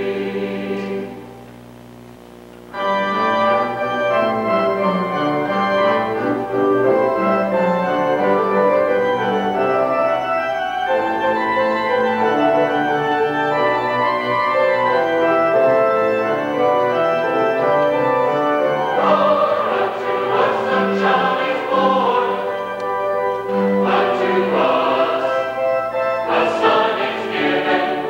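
Mixed church choir singing a classical Christmas choral work, accompanied by organ and strings. About a second in the music drops to a soft held sound, then choir and accompaniment come back in together at full strength just under three seconds in.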